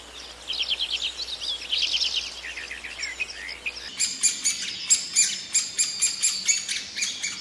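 Small birds chirping: short rapid trills repeated every half second or so, then, about four seconds in, a denser run of sharp, overlapping chirps.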